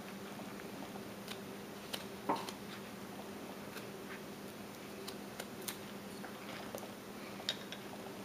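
Knife cuts in a small wood carving held in a gloved hand: a string of irregular soft clicks and snicks as chips come away, the sharpest about two seconds in, over a steady low hum.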